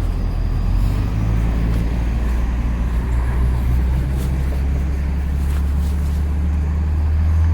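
Motor vehicle engine idling: a steady, loud low hum, over street traffic noise.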